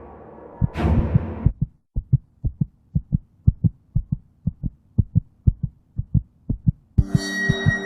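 Heartbeat sound effect in a horror soundtrack: a rapid double thump, about two beats a second. It follows a swelling hit that cuts off about a second and a half in, and near the end a humming musical drone comes in under the beat.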